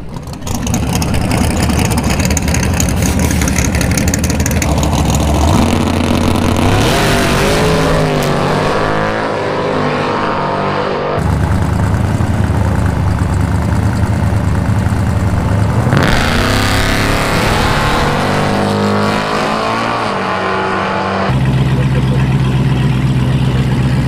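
Drag racing cars' engines at the starting line, loud and running hard, revving with rising pitch. Several short clips are cut together, the engine sound changing abruptly every four to five seconds.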